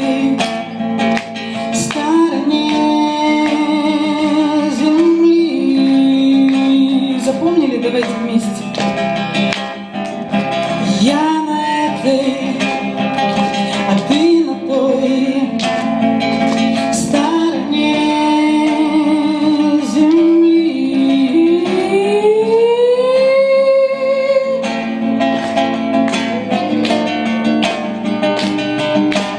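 A woman singing while strumming an acoustic guitar. Her voice holds long notes and slides between pitches, with one long upward slide near the end.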